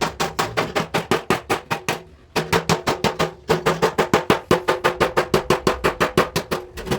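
Hammer tapping rapidly on car body sheet metal, about six strikes a second, each with a short metallic ring, with two brief pauses.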